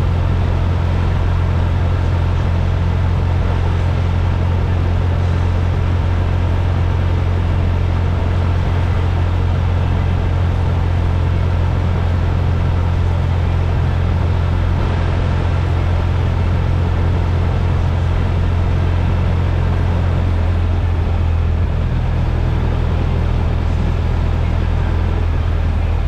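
Steady low rumble of a motor vehicle running at an even speed, its low hum shifting slightly about 21 seconds in.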